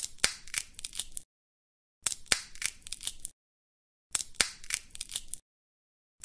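Peanut shells cracking: a run of sharp crackling snaps lasting just over a second, played three times with dead silence between.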